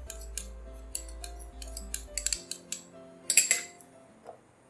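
Background music of held melodic notes, with scattered light clicks and a short cluster of clicks about three and a half seconds in.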